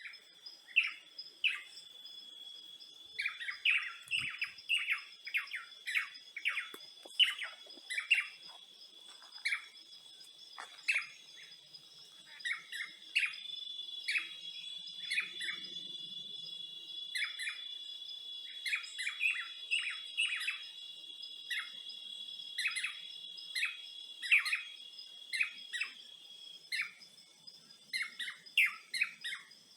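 Birds chirping in many short calls, some in quick runs of several a second, over a steady high insect drone.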